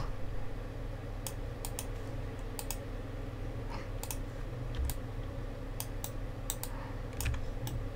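Scattered clicks of a computer keyboard and mouse, coming irregularly in small clusters over a low steady hum.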